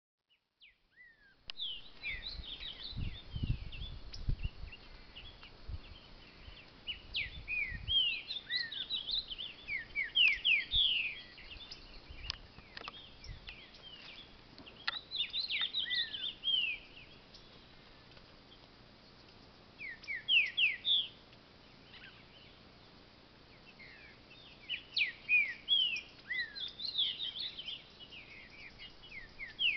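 Green-winged saltator (trinca-ferro) singing from its cage in bursts of quick, sliding whistled notes, with pauses of a few seconds between phrases. A low rumble, like wind on the microphone, sits under the first several seconds.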